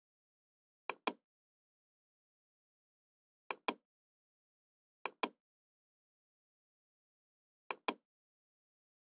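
Computer mouse clicking four times, each click heard as a quick double tick, with a couple of seconds of dead silence between them.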